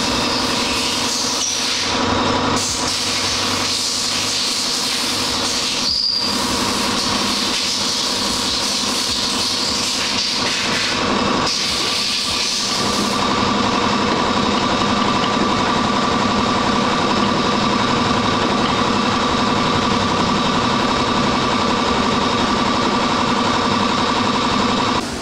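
Steady, loud machine noise with a constant hum running throughout; the hum grows stronger about halfway through.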